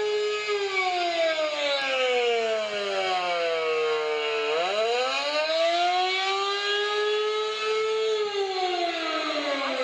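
Mobile alert siren sounding during a test. Its wail holds briefly, falls steadily for about four seconds, climbs back up, holds, then falls again near the end.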